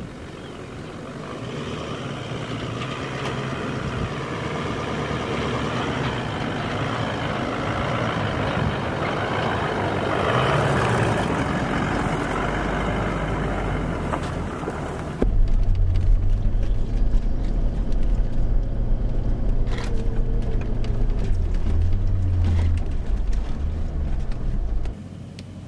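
Toyota LandCruiser 200 Series V8 driving up a steep, sandy four-wheel-drive track, its engine and tyres growing louder as it comes close by. About fifteen seconds in the sound cuts to a steady engine drone with wind, as heard from a camera on the bonnet.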